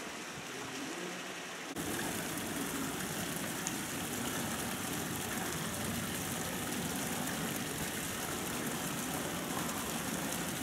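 Steady rush of splashing water from a tiered stone courtyard fountain, starting abruptly about two seconds in after a quieter outdoor ambience.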